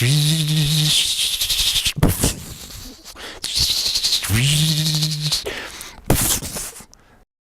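A person imitating a tank with their mouth: a low steady hum for the diesel engine, twice, with short explosive mouth bursts for gunfire about two seconds in and again about six seconds in. The sound cuts off just before the end.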